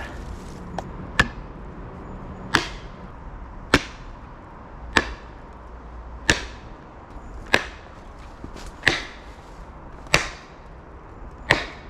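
Stacked plastic felling wedges being driven into the back cut of a fir tree, struck with about nine steady, evenly spaced blows roughly a second and a quarter apart. The wedging lifts the tree toward its fall and slackens the pull rope.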